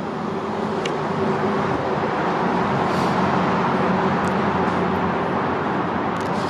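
Steady wash of road traffic noise, an even hum of passing cars with no single vehicle standing out.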